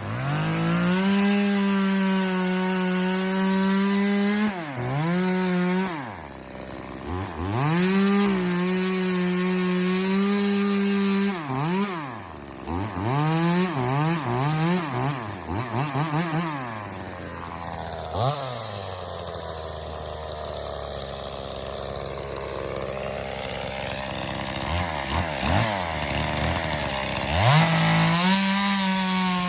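Echo CS-2511T small two-stroke top-handle chainsaw revving to full throttle and holding it in long steady stretches, as when cutting wood, with the revs falling away between cuts. Around the middle there is a run of quick throttle blips, then a lower, quieter stretch before it revs up again near the end.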